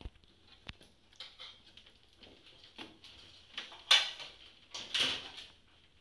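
Handling noise from the wiring and plastic connectors of a ceiling-cassette air-conditioner unit being worked by hand. There are two sharp clicks in the first second, then scraping and rustling, loudest about four and five seconds in.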